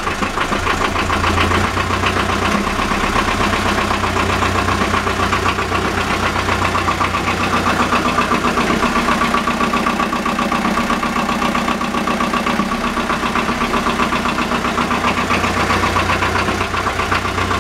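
Motor boat's inboard engine running steadily at low revs, with an even rhythmic clatter. It is being run out of the water without its external raw-water cooling circuit.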